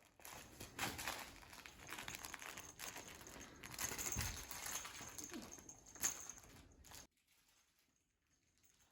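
Rustling and scuffling of a cat playing with a stuffed toy doll, with a sharp knock about six seconds in. The noise stops abruptly about a second later.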